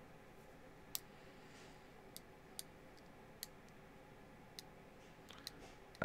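Faint, sharp clicks, about seven at irregular spacing, the strongest about a second in: a small handheld object tapping against the metal handle and bolsters of a Schrade Truix folding knife.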